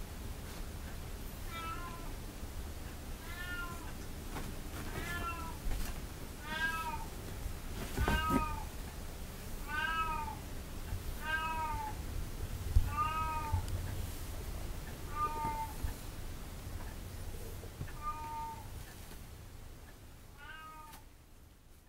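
A kitten meowing again and again, about a dozen short high meows that rise and fall, one every second or two, with a couple of soft bumps among them; the sound fades out near the end.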